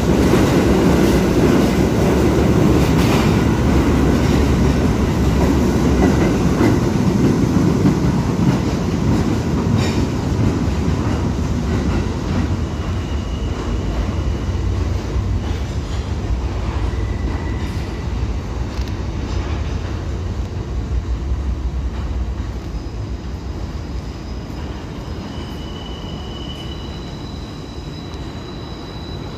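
New York City subway train pulling out of the station: a loud running rumble with knocks from the wheels, fading away over the first ten seconds or so. After that, a fainter rumble with brief high wheel squeals from a train coming through the tunnel.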